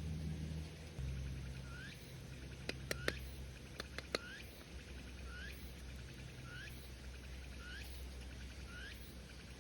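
A bird calling over and over, short upward-sweeping notes roughly once a second. A few sharp clicks come together about three seconds in, over a steady low rumble.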